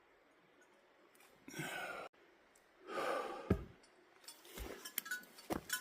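A man breathing out twice in sighs, about a second apart, then a scatter of small sharp clicks, the mouth sounds of chewing a handful of wild berries.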